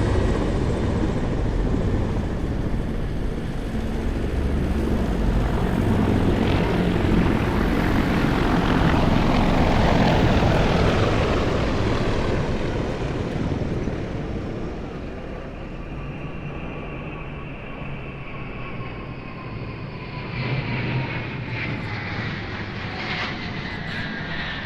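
Formation of Mi-28N attack helicopters flying past with heavy rotor chop, fading about halfway through as a four-engine A-50U AWACS jet approaches; its turbofan whine slides down in pitch as it passes overhead.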